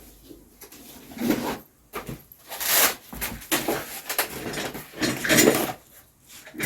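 Rummaging and handling of tools and objects on a workbench: several separate scrapes and clatters, loudest about three seconds in and again near five and a half seconds.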